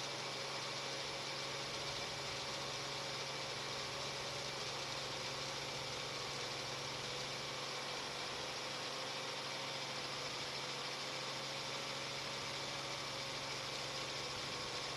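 Helicopter engine and rotor drone heard from inside the cabin through the crew's microphones: a steady, unchanging hum with a slightly wavering higher tone over a hiss.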